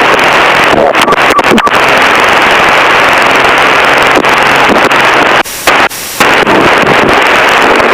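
Loud, steady rushing noise on the aircraft radio frequency, the sound of a hot (stuck-open) mic transmitting. It breaks off in two short dropouts about five and a half seconds in.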